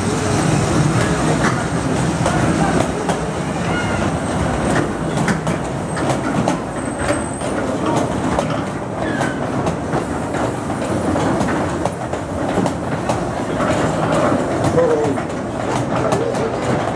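Miniature-railway passenger coaches rolling slowly past on the track, a steady rumble of wheels on rails with many irregular clicks and knocks.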